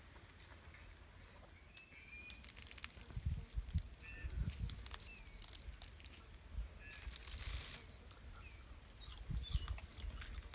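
Small birds chirping in short, scattered calls over soft handling noise: a plastic bag rustling and low knocks as cooked fish and sticky rice are pulled apart by hand.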